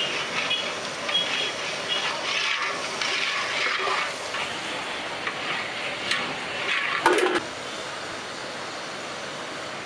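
Street traffic noise with a vehicle's reversing beeps repeating in the first two seconds, and a short loud knock about seven seconds in.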